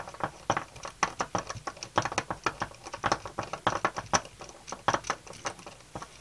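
Irregular small metallic clicks and taps, several a second, as the parts of a manual brake pipe flaring tool and a copper brake pipe are handled and fiddled with by hand.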